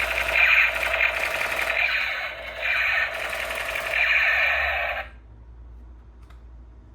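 Toy sound gun playing its electronic machine-gun firing effect through a small tinny speaker, a rapid rattle of shots that swells in a few waves and stops abruptly about five seconds in.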